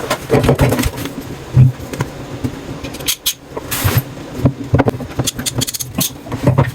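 Irregular clicks, knocks and clatter of tools and plumbing parts being handled, with some low murmuring in between.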